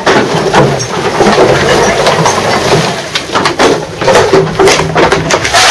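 Irregular clatter, knocks and rustling of junk and debris being shifted and stepped through in a cluttered room.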